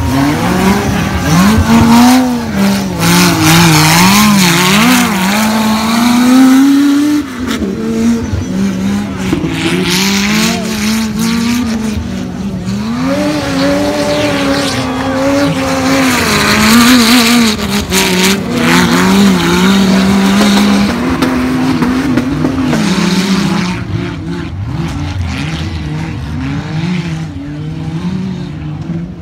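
Off-road 4x4 race vehicles' engines revving hard, the pitch rising and falling again and again as they accelerate and back off, with bursts of rushing noise. Quieter near the end.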